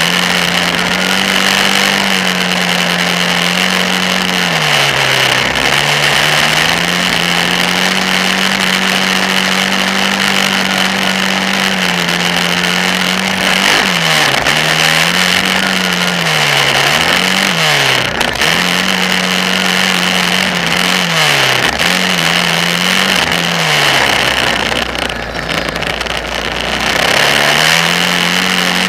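Kawasaki Brute Force 650 ATV's V-twin engine under way on a dirt track, its note holding steady for long stretches and dropping and climbing back several times as the throttle is let off and reopened around the jumps. Near the end the engine note fades out for a couple of seconds, then returns.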